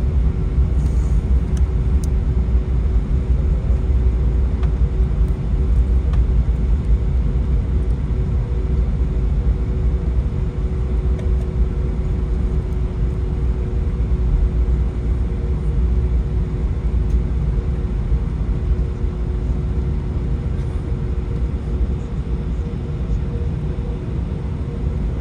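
Inside the cabin of an Airbus A321-200 rolling slowly along the runway: a steady low rumble from the wheels and airframe, with the engines at idle adding a steady hum of two tones.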